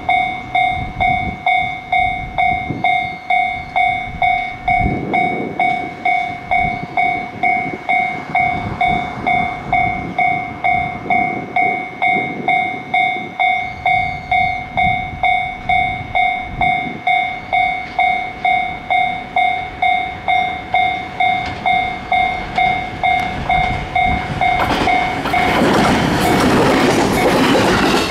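Japanese level-crossing warning bell ringing steadily at about two dings a second. Near the end a JR West 223 series electric multiple unit passes close by with a clatter of wheels over rail joints, and the bell stops.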